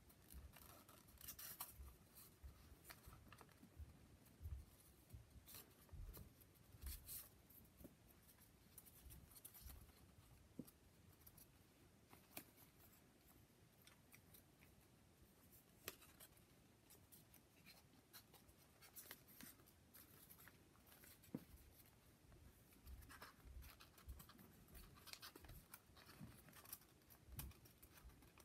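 Faint, irregular rustling and crinkling of folded paper as modular origami units are handled and slotted together into a polyhedron, with soft little bumps of handling.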